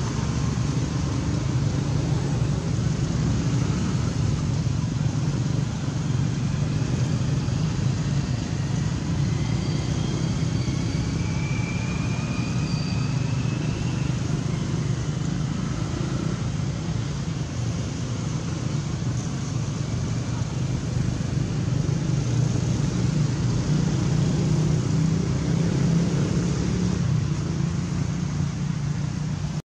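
Steady low rumble of outdoor background noise, with a few faint high chirps about ten to fourteen seconds in.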